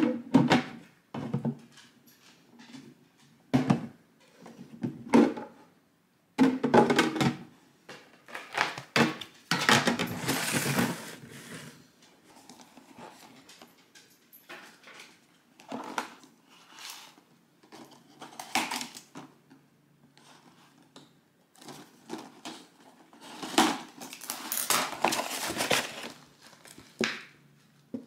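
Plastic storage boxes and lids knocked, fitted and set down on a countertop, then a cardboard box handled and its lid opened: a series of short knocks and taps with bouts of scraping and rustling.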